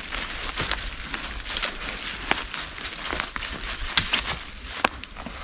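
Footsteps crunching and rustling through a thick layer of dry fallen leaves, an uneven run of crackles with a few sharper cracks about two, four and five seconds in.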